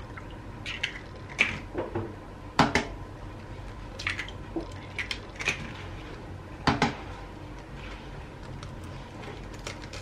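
Eggs being cracked against a bowl and dropped in: a series of short, sharp knocks and clinks of shell on dish, the loudest nearly three seconds and about seven seconds in.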